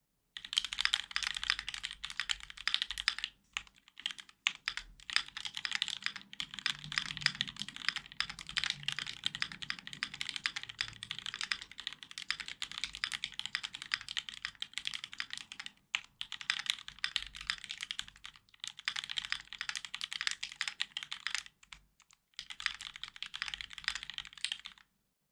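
Typing on a Keychron Q2, a gasket-mounted 65% aluminium-case mechanical keyboard fitted with lubed Tropical linear switches and PBT keycaps. The keystrokes come in quick runs, with short pauses around four, sixteen and twenty-two seconds in.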